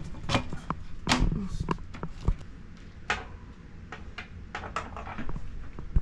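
Irregular light clicks and knocks of bicycle parts being handled and fitted during a road bike build, the loudest about a second in and again near the end.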